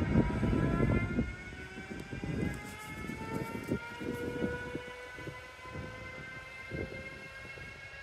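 Siemens Vectron electric locomotive accelerating away, its traction converters and motors whining in several tones that slowly rise in pitch. A low rumble dominates the first second, with scattered wheel knocks over the rails as the coaches roll past.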